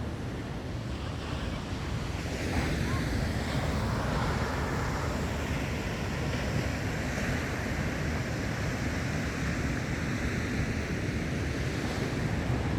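Sea surf washing onto a sandy beach, a steady rush of breaking waves that swells louder about two seconds in.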